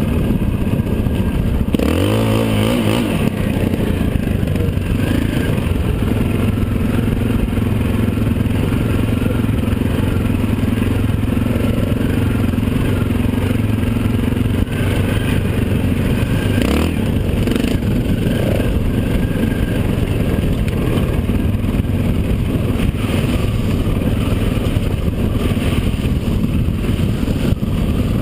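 Dirt bike engine running under load on a muddy trail, its pitch rising as it revs up about two seconds in and briefly dipping around two-thirds of the way through, under a steady rush of wind noise on the helmet camera.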